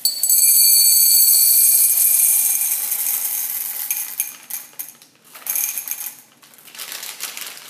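Small hard candies pouring from a bag into a glass jar. A dense rattling rush at first thins out after about two seconds into scattered clicks and clinks against the glass as the stream slows.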